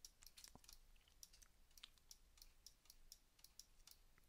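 Faint, irregular clicking of a computer mouse and keyboard, several clicks a second, over near silence.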